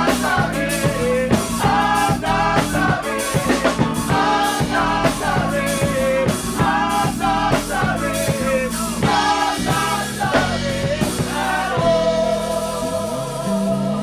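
Gospel choir singing an up-tempo worship song over a live church band with a steady drum-kit beat. About twelve seconds in, the singing stops and the band holds a steady chord.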